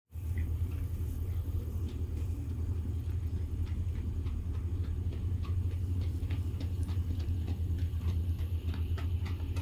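Hoofbeats of a ridden black stallion trotting on a gravel lane, faint sharp clicks at first that come clearer and more often as the horse approaches, over a steady low rumble.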